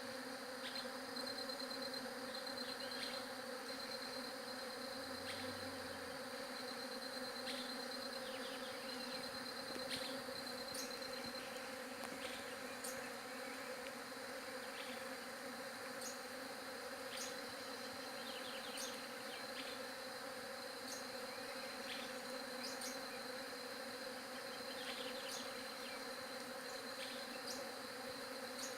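Many bees buzzing together in a steady, even hum. Short high chirps repeat about every second and a half over it.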